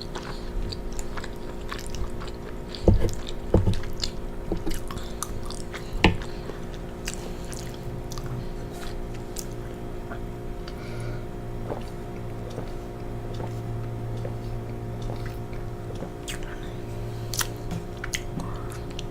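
A person chewing penne pasta close to the microphone: scattered wet mouth clicks and smacks, over a steady low hum.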